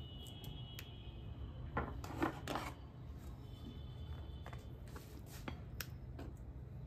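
Soft rubbing and scraping as slices of paneer are laid onto a ceramic plate and pressed into a wet garlic-chilli marinade. The sounds are loudest in a short cluster of scrapes about two seconds in, with a few light clicks near the end and a low steady hum beneath.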